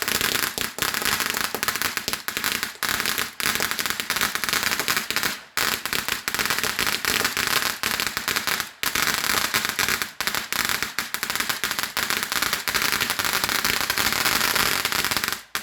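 Fireworks crackling in a dense, rapid stream of pops and crackles, with two brief breaks about five and a half and nine seconds in, then stopping suddenly.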